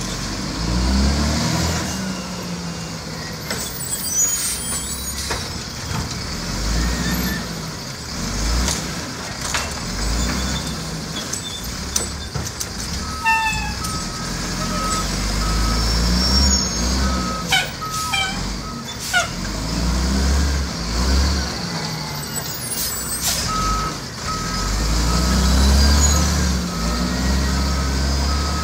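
Diesel garbage truck's engine revving in repeated surges, with its reversing beeper sounding in two spells, from about halfway and again near the end, and scattered sharp knocks.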